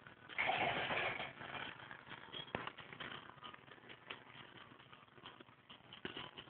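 Handling noise from a phone being moved while filming: soft rustling and scattered small clicks. A louder rustle lasts under a second, starting about half a second in, and one sharp click comes about two and a half seconds in.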